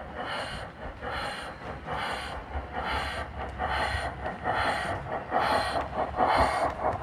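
Sound-fitted 7mm-scale model of a Somerset & Dorset 7F 2-8-0 steam locomotive hauling a goods train: steady exhaust chuffs a little under a second apart over a low rumble of wheels on the rails, growing louder as it draws near.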